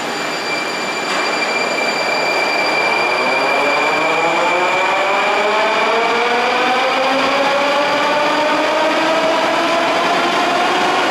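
81-740/741 Rusich metro train pulling out of the station and accelerating: its traction motors give a whine that rises steadily in pitch from a couple of seconds in, over the running noise of wheels on the rails.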